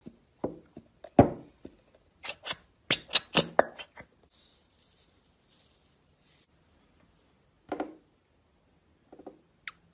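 Containers and tools handled on a table: a quick run of hard taps and clinks, then a soft hiss lasting about two seconds, then a few scattered knocks and a short high ping near the end.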